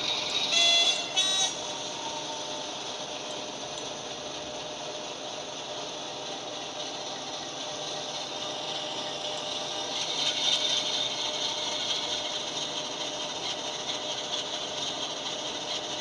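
Diesel locomotive sound from an ESU LokSound V5 decoder, played through a small model-locomotive speaker: two short horn blasts a little after the start, then the diesel engine running steadily, growing louder about ten seconds in.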